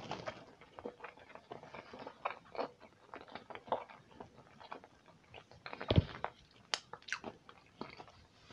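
Close-miked chewing of a Philadelphia sushi roll with cucumber: irregular wet, crunchy mouth clicks and crackles. A louder thump comes about six seconds in, followed by a few sharp clicks.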